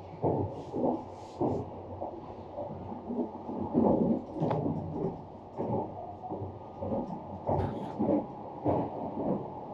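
Running noise of the Saphir Odoriko train heard inside its cabin: a muffled low rumble with irregular dull knocks every half second or so.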